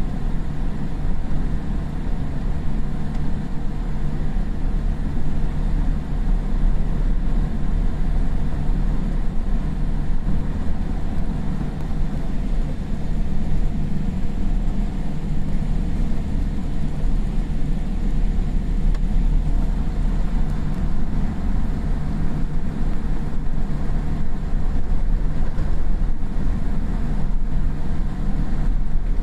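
Cabin noise of a Boeing 787-8 airliner taxiing after landing: a steady low rumble, with its engines at idle and a few faint steady tones above it.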